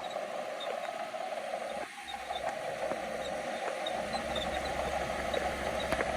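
Shantui bulldozer's engine running steadily under a haze of noise, with scattered faint clicks and rattles.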